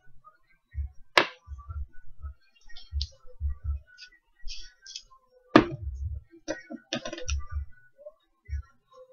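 Metal parts of a hybrid vape mod being handled and fitted together by hand: two sharp clicks, about a second in and again halfway through, with scattered light metallic clinks and scrapes and soft low bumps against the table.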